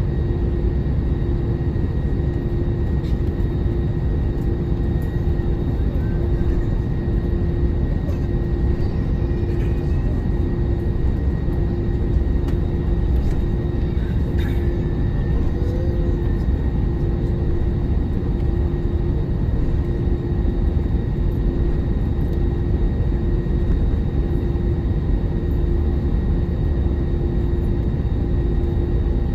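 Airbus A321-200 airliner heard from inside the cabin: a steady low rumble of the engines at low thrust and the cabin air, with a constant hum over it, as the plane taxis.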